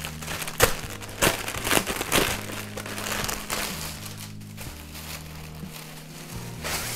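Clear plastic packaging bag crinkling as a T-shirt is pulled out of it, with four sharp crackles in the first couple of seconds and softer rustling after. Soft background music with held low notes runs underneath.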